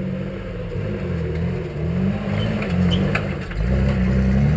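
Off-road trial buggy's engine revving under load, its note rising and falling, then louder and climbing from about three and a half seconds in as the driver accelerates.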